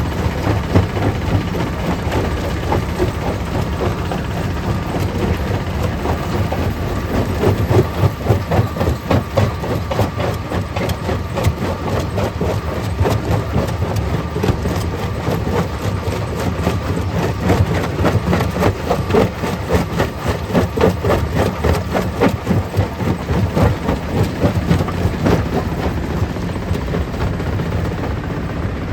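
Stone crusher plant running: a steady low engine drone with a dense, irregular clatter of knocks as rock is broken up.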